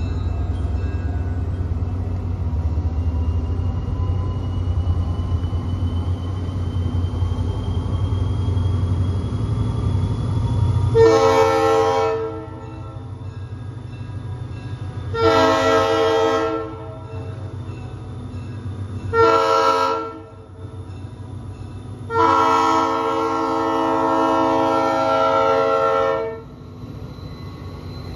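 Diesel locomotive air horn sounding the grade-crossing signal: two long blasts, one short, then a final long blast held about four seconds as the train reaches the crossing. The horn plays several notes at once. A low rumble from the approaching train comes before the horn.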